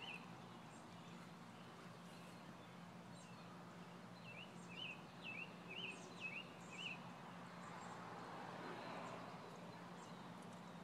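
Northern cardinal singing a short phrase of about six quick, slurred whistled notes, starting about four seconds in. A faint steady low hum runs underneath.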